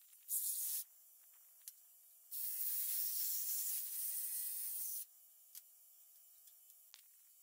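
Handheld power tool cutting overhead into old barn framing: a short burst of high buzzing whine, then a longer one of nearly three seconds whose pitch wavers as it works.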